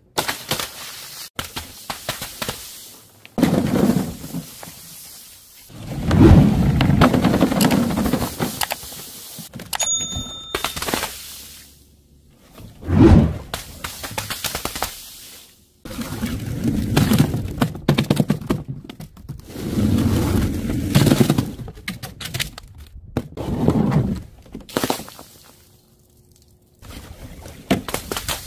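Powder-filled balloons bursting one after another, about eight heavy thuds with a burst, each dying away over a second or two. A short ringing tone comes in about ten seconds in.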